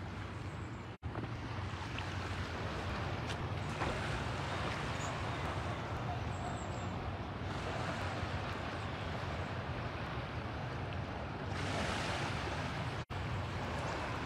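Wind gusting over the microphone with small lake waves washing onto the rocky shore, a steady rush that swells a few times and cuts out briefly twice.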